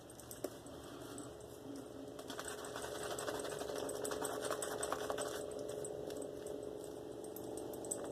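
Boar-bristle shaving brush working Mitchell's Wool Fat Soap lather against the skin: a fast, scratchy crackle that builds and is densest in the middle seconds, then eases.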